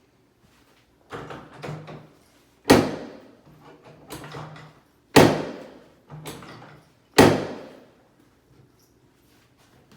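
Chiropractic drop table sections dropping under adjustment thrusts: three sharp thuds about two and a half seconds apart, with quieter clunks in between.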